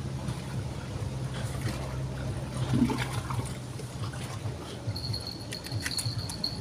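River water running and trickling steadily, with an insect's high, steady trill starting about five seconds in.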